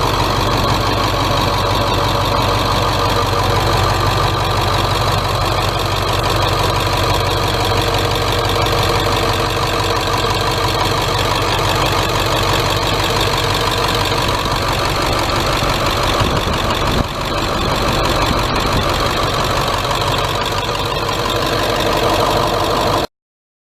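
Diesel engine of a 1996 Blue Bird school bus, an International T444E 7.3-litre V8 turbodiesel, idling steadily. The sound cuts off abruptly near the end.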